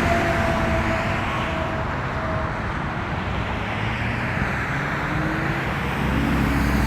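Road traffic noise from passing cars. A faint steady tone from the tail of the Whelen outdoor warning siren's short alert fades out within the first couple of seconds.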